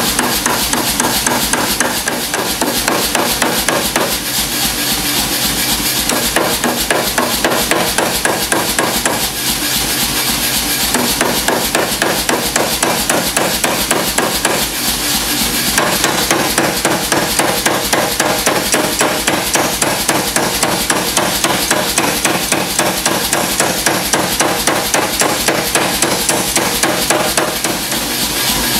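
Power hammer striking hot mild steel on the die in a fast, steady run of blows, drawing out a spatula blade.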